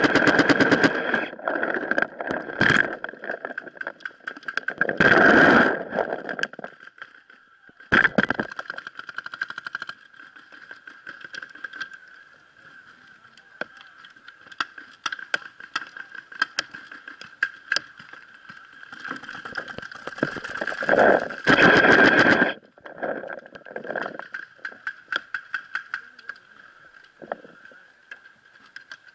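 Paintball markers firing in rapid bursts of shots, with scattered single shots in between. The heaviest bursts come at the start, around five and eight seconds in, and again around twenty seconds in.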